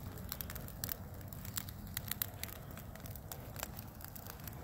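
Wood fire in an open fire pit crackling, with sharp pops at irregular moments, several a second, over a steady low rumble.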